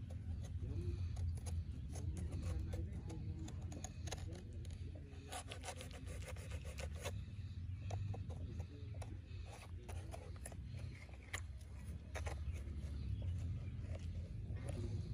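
A knife blade scraping and cutting into the husk and soft white flesh of a young green coconut: a run of short, irregular scrapes and clicks as the blade works around the opening, over a steady low rumble.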